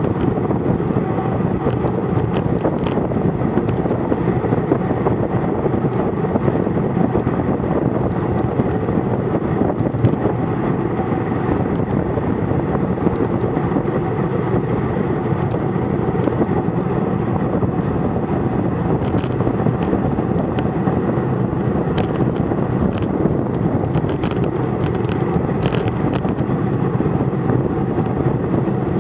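Steady rush of wind on a bike-mounted Garmin VIRB camera's microphone while riding a road bike at speed, mixed with road noise. Scattered light clicks come through, more often in the second half.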